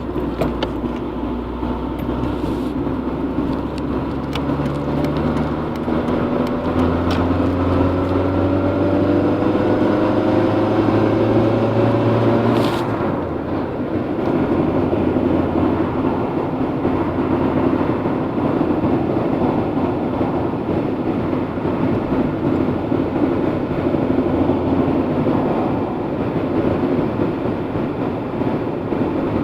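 Honda Integra DC2 driving, its engine rising gently in pitch from about 4 to 12 seconds in and then running steadily under road noise. A few sharp knocks come in the first seconds, and a heavier thump about 13 seconds in. These are the thumping/knocking the owner later traced to a faulty half shaft combined with an aftermarket driveshaft.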